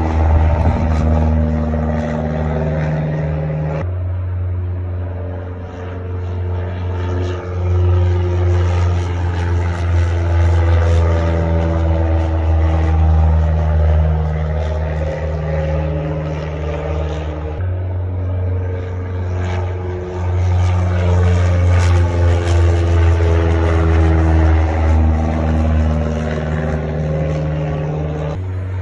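Single-engine Cessna light plane passing low overhead, its piston engine and propeller making a steady low drone. The sound jumps abruptly about 4 seconds and 18 seconds in.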